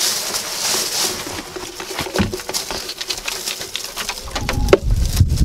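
Dead leaves rustling and crackling as they are tipped from black plastic leaf-grabber scoops into a wheelbarrow, with many small clicks. A low rumble comes in near the end.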